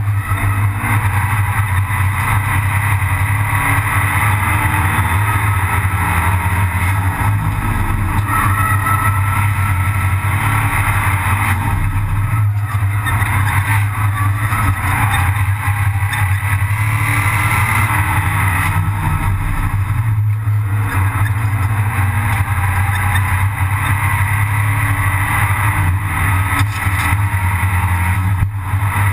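Abarth 500 Assetto Corse race car's turbocharged 1.4-litre four-cylinder engine, heard from inside its stripped, caged cabin, running hard at racing speed. The engine note dips briefly about twelve, twenty and twenty-eight seconds in.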